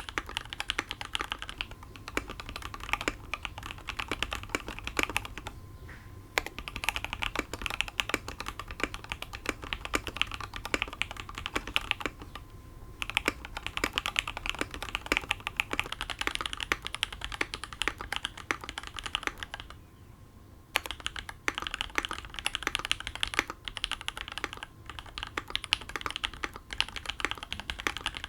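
Continuous fast typing on a Matrix 2.0 ADD VKG custom mechanical keyboard with Sp-Star Meteor White switches, an aluminium plate and TX stabilisers, dampened with PCB and case foam: a dense run of keystroke clacks, pausing briefly three times.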